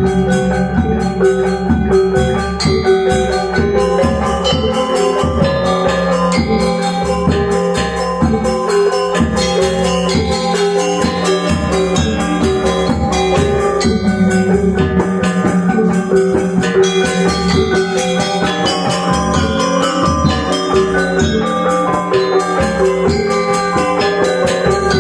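Balinese gamelan gong ensemble playing a Tabuh Pisan piece: bronze metallophones struck in dense, interlocking patterns with gongs and drums, running continuously at a steady level.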